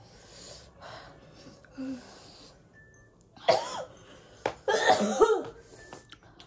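A woman coughs, with one sharp cough a little past halfway and a short cluster of coughs about a second later, after faint breathy hissing. This is her reaction to the burn of 2x spicy ramen.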